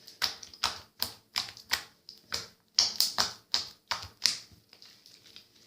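Slime being poked and pressed by hand, giving a run of sharp popping clicks as air pockets burst, about three a second; they thin out near the end.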